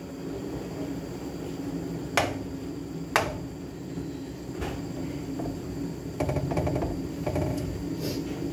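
Kitchen handling sounds: three sharp clicks or knocks of pans and utensils about a second apart, then a short run of lighter clattering, over a steady background hum.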